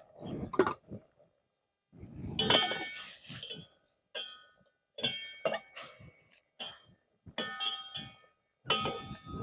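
Metal spatula clinking and scraping against the sides of a stainless steel pot as chunks of pumpkin are stirred, a string of short ringing metal strikes with brief pauses between them.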